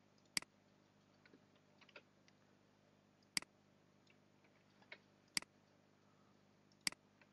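Sharp, isolated clicks of a computer mouse: four loud single clicks a few seconds apart, with a few fainter clicks between them.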